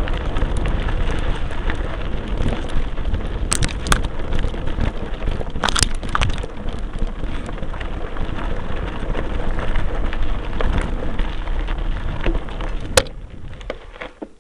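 Mountain bike riding over a rough gravel track, heard from a camera mounted on the bike: a steady rush of wind and tyre noise with the bike and camera rattling, and a few sharp knocks from bumps. The last and loudest knock comes near the end, after which the noise drops away.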